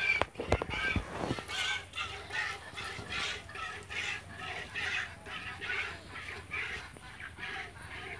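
Milk squirting from a cow's teats into a pot during hand milking, in rhythmic spurts about two a second. Birds call in the background near the start.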